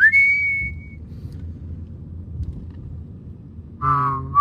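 A whistled note rises and is held for about a second, then breaks off, leaving the low rumble of the car driving. Whistling with a singing voice starts again near the end.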